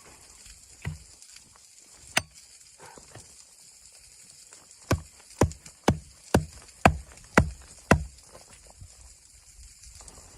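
Hard knocking blows, something struck repeatedly: two single knocks, then a steady run of seven about two a second from around five seconds in, over a steady hiss.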